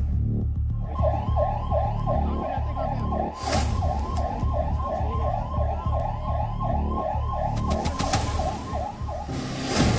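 Ambulance siren in a fast yelp, rising and falling about three times a second. It starts about a second in and cuts off near the end, over a low, heavy drumming music bed, with a sharp whoosh-like hit around three and a half seconds in.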